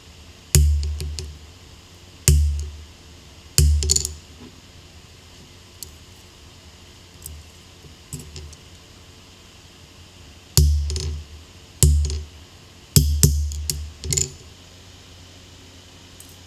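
Steel hammer blows on a handled top tool held against hot steel on an anvil, each a sharp metallic strike with a ringing decay. Three strikes in the first four seconds, a stretch of light clinks, then a second cluster of about five heavy metal knocks.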